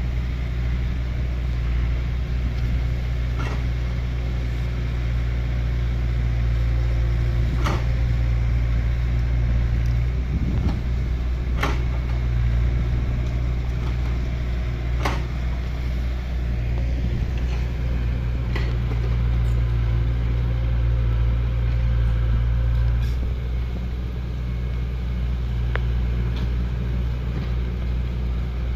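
Excavator's diesel engine running steadily, with sharp knocks every few seconds and a slight drop in revs near the end.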